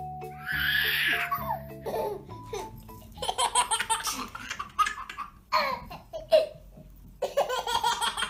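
A baby laughing in repeated bursts of belly laughs. A short tune of plinking notes plays at the start.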